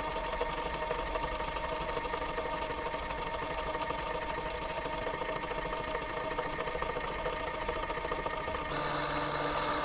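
Old film projector sound effect: a steady, rapid mechanical clatter over a hum, changing tone near the end and cutting off suddenly.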